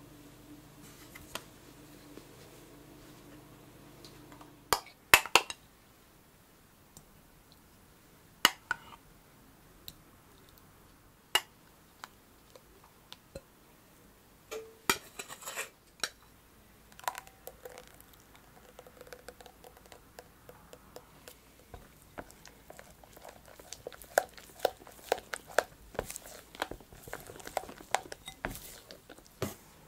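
A few separate knocks and clinks of a glass bowl and utensils being handled. From about the middle on, a silicone spatula folds berry purée into a yogurt and cream mousse base in a glass bowl, making a quick run of soft wet squelches and scrapes against the glass.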